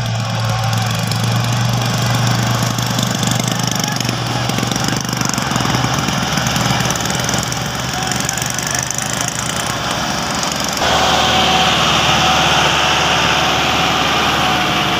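Tractor's diesel engine running steadily, growing louder about eleven seconds in.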